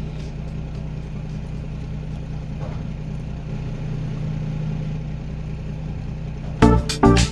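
An engine running steadily with a low hum, then a few loud sharp knocks near the end.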